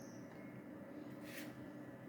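Quiet room tone: a faint steady hum and background hiss from the microphone, with a brief soft hiss like a breath about one and a half seconds in.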